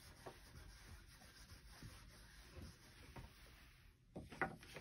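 Faint rubbing of a felt eraser wiping marker off a whiteboard, with a few short soft taps near the end.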